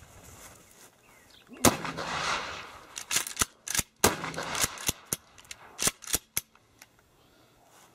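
Two 20-gauge shotgun blasts loaded with birdshot, about two and a half seconds apart, each with a trailing rumble. A string of shorter sharp cracks and clicks falls between and after them.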